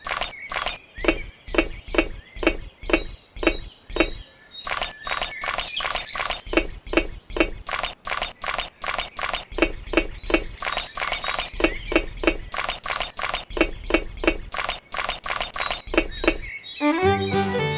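Steady, evenly paced clacking knocks, about two a second, with a faint high whine behind them; music with fiddle and guitar starts near the end.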